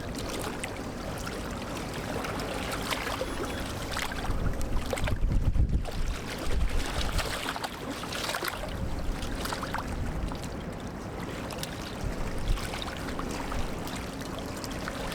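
Gusty wind buffeting the microphone, with water splashing and lapping at the dock edge in uneven surges.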